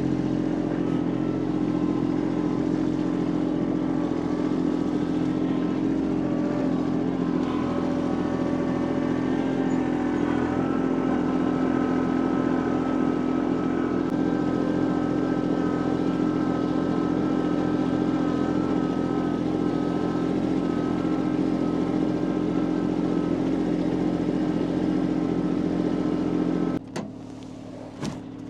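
A motor running steadily at a constant speed, cutting off suddenly near the end.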